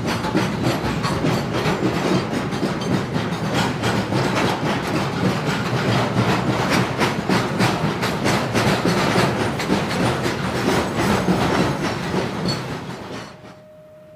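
A train passing close by, its wheels clattering over the rail joints in a rapid, continuous run of clacks, until the sound drops away near the end.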